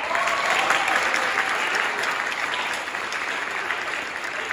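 A large audience clapping. The applause breaks out suddenly, is loudest at first, then slowly tapers off.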